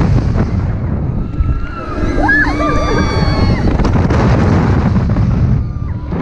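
Wind buffeting the microphone of a rider on a flipping amusement-park ride, a heavy rumbling rush that stays loud throughout, with voices crying out about two to three seconds in.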